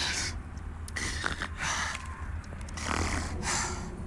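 A man breathing hard in heavy, ragged gasps, about one a second, over a low steady hum.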